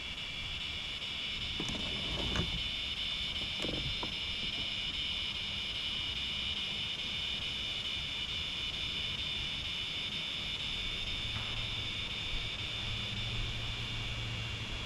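Steady high-pitched insect chorus, with a few knocks in the first few seconds and a low hum coming in near the end.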